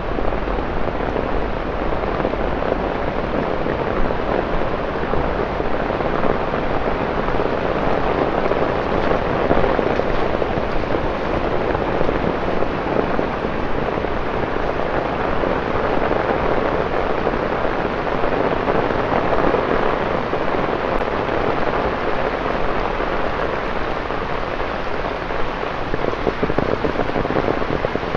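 Heavy rain falling on wet pavement and road, a steady, even downpour with no breaks.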